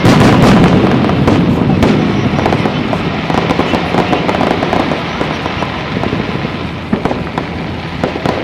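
Fireworks display: dense crackling and bangs from bursting shells, loudest at the start and slowly dying away, with scattered sharp cracks toward the end.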